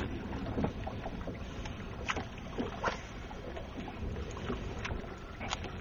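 Wind buffeting the microphone over water lapping against a bass boat's hull. Scattered sharp clicks and knocks come from handling and unhooking a thrashing largemouth bass with pliers.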